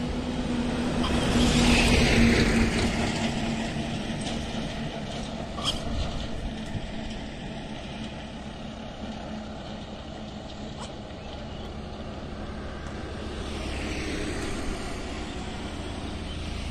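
Road traffic: a motor vehicle passes, its engine and tyre noise building to a peak about two seconds in and then fading, and a second, quieter vehicle swells past near the end. A few faint clicks sound in between.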